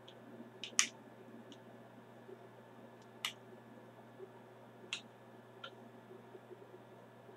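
A few short, sharp clicks and crackles, the loudest about a second in, from hands handling an opened pH buffer powder sachet over a bottle. A low steady hum runs underneath.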